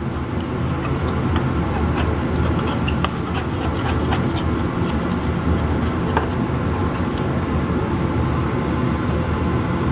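Steady low machine hum, like an appliance or fan running, with faint scattered clicks and scrapes of a table knife against an aluminium sheet pan.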